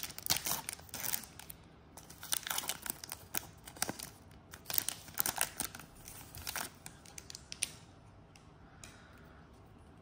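Wrapper of an NBA Hoops trading-card pack being torn open and crinkled by hand, in a run of crackling rustles that die down about eight seconds in.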